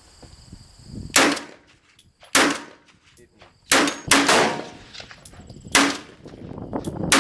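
Six gunshots from a rifle on the firing line, fired one at a time at an uneven pace, with each sharp report trailing off quickly.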